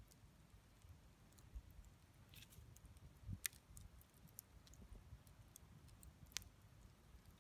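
Bonfire crackling faintly: sparse small pops and clicks, with sharper ones about three and a half and about six seconds in.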